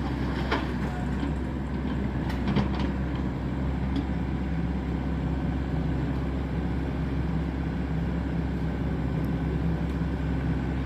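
Excavator's diesel engine running steadily, with a few short knocks in the first three seconds.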